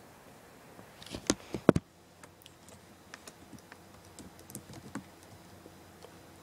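Someone typing out a message reply: scattered light taps and clicks, with a few louder knocks between about one and two seconds in.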